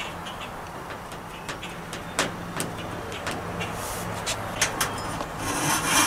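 A motor vehicle's engine running steadily nearby, with scattered short ticks over it and a brief noisy burst near the end, the loudest moment.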